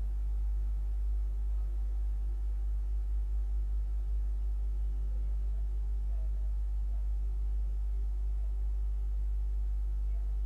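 Steady low electrical hum, like mains hum picked up by the recording, with faint higher tones above it.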